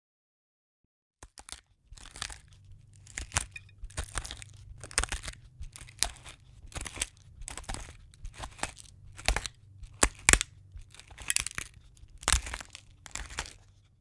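Salt and pepper being dispensed: a run of short, gritty, crunching strokes at about two a second, starting about two seconds in after a couple of faint clicks.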